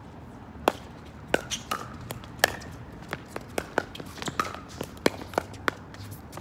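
Pickleball rally: the hard plastic ball popping off the paddles and bouncing on the hard court in a quick, irregular string of sharp clicks, the loudest of them about a second and two and a half seconds in.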